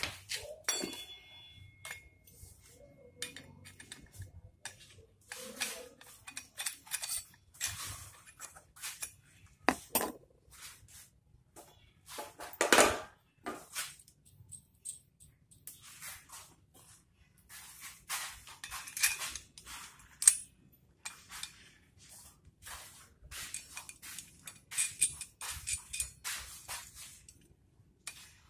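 Metal parts of a Tianhong sewing-machine servo motor clinking and knocking as the motor is fitted to its mounting bracket by hand. Bolts, washers and the bracket tap against the motor housing in scattered sharp clinks with short quiet gaps, and the loudest knock comes about 13 seconds in.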